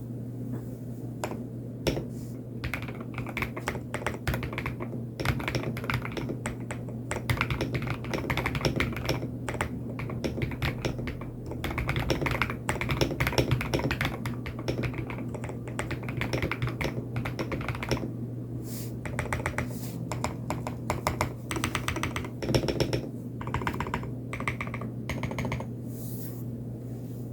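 Typing on a TN84 mechanical keyboard with tape-modded case, lubed Lumia Matcha switches and XDA-profile keycaps: a continuous stream of keystroke clacks, thinning to a few spaced single presses near the end, over a steady low hum.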